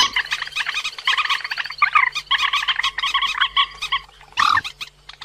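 Recorded calls of the cuốc biển, a rail-type waterbird, used as a trapping lure: fast chattering runs of short repeated notes. About four seconds in the notes stop briefly, then one lower call sounds, and a faint steady hum lies underneath.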